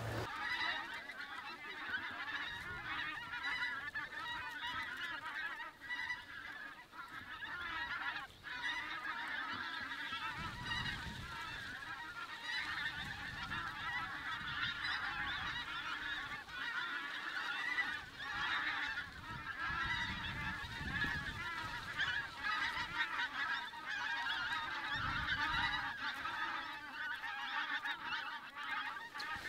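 A large flock of pink-footed geese calling in flight overhead: a continuous, dense chorus of many overlapping honking calls.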